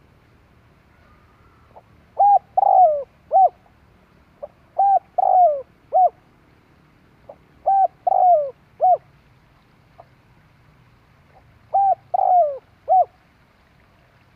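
A spotted dove cooing its song four times: each phrase is a short coo, a longer falling coo and a short coo, with pauses of a few seconds between phrases.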